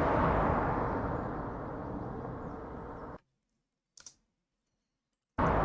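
Sound-effect recording of a car passing by at low speed: a dense rushing noise, loudest near the start and fading away, cut off abruptly about three seconds in. A single short click follows, then the same pass-by starts again abruptly near the end.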